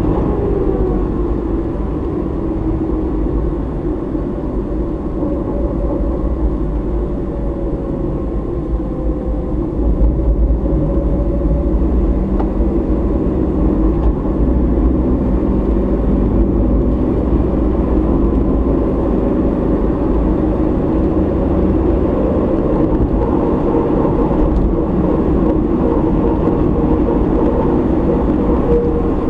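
Car driving along a road, heard from inside the cabin: a steady low rumble of engine and tyre noise, with a faint engine note that slowly falls and rises as the speed changes.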